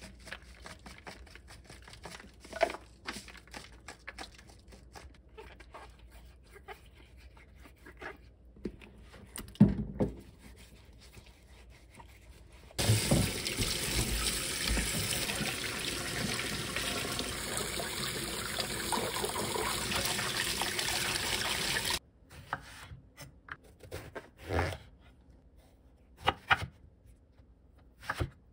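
Eggplants and green peppers being rubbed and handled in a stainless steel bowl, with scattered small knocks and clinks. Then a kitchen tap runs steadily onto the vegetables in the bowl for about nine seconds and stops abruptly. Near the end come a few sharp knocks of a chef's knife cutting eggplant on a wooden chopping board.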